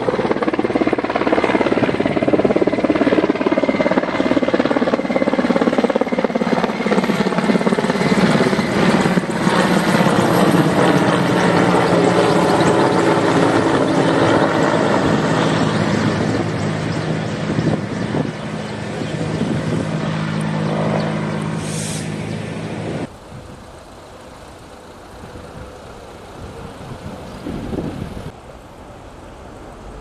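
Large firefighting helicopter with a water bucket slung beneath flying low overhead: loud rotor and turbine noise, its tone sliding down in pitch as it passes. About three-quarters of the way through it cuts off abruptly to a much quieter outdoor background.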